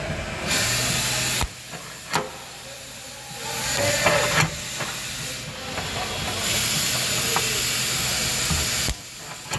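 Dent-puller spot welder firing against a car's sheet-metal rocker panel: a hiss with a low buzz that switches on and off abruptly, three times for about one to two and a half seconds each, with a few sharp clicks between.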